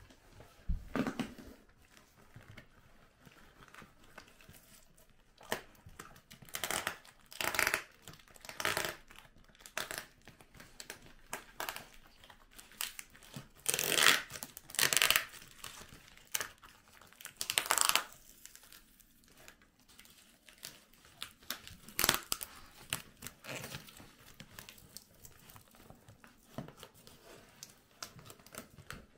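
Cardboard package being torn open by hand: irregular bursts of tearing and crinkling as tape and wrapping are pulled off, loudest around the middle, with one sharp snap about two-thirds through.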